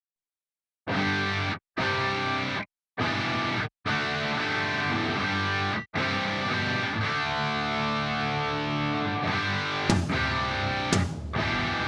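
Background music that starts after about a second of silence, cuts out abruptly several times in its first few seconds, then plays on continuously.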